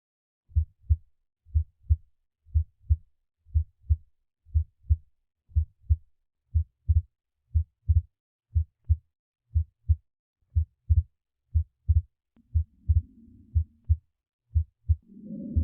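Heart sounds played back by the iPax auscultation teaching system: a steady lub-dub, two low thuds close together, about once a second (around 60 beats a minute). Near the end a breath sound joins in, a low rushing that comes and goes twice under the beats, as lung sounds are switched in.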